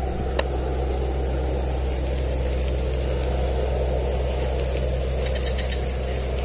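A steady low rumble, like an engine idling, with a faint high thin whine above it and a single sharp click about half a second in.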